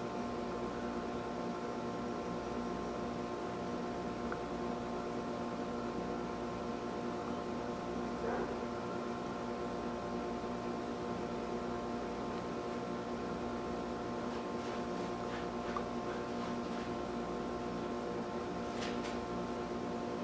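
Steady electrical hum made up of several even tones, with a few faint clicks near the end.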